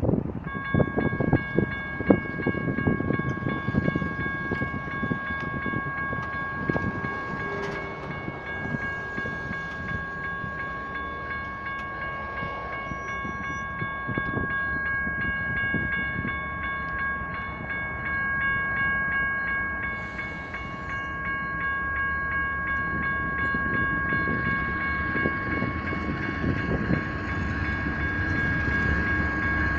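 General Signals Type 1 electronic crossing bells ring steadily from about half a second in, signalling an activated grade crossing with gates lowering. Low traffic and wind noise runs under the bells, and a low rumble builds in the second half as the freight train approaches.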